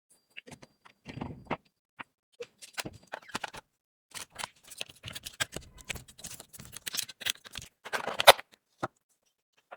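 Irregular small clicks, taps and rustling from handling a smartphone and small repair tools at a workbench. The activity is busiest in the second half, with a louder scraping clatter about eight seconds in.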